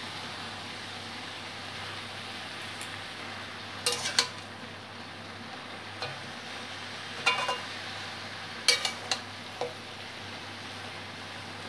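Pumpkin leaves, stalks and vegetables sizzling steadily as they fry in oil in a metal kadai. A metal spatula stirs them, scraping and clattering against the pan in short strokes a few times.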